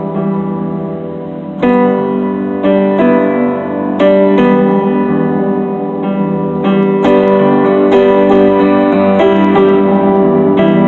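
Electric keyboard in a piano voice playing an instrumental passage, chords and melody notes struck about once or twice a second and left to ring. Softer for the first second and a half, then fuller.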